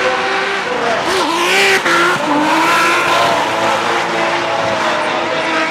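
Drift cars' engines revving hard during a tandem drift, their pitch rising and falling as the throttle is worked, with tyres squealing and skidding loudest about one to three seconds in.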